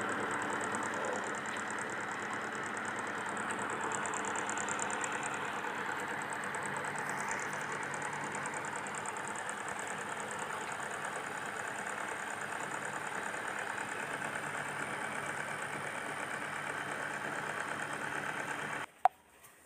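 Microwave oven running in grill mode: its cooling fans and motor make a steady hum. Near the end it all cuts off suddenly, followed by a sharp click.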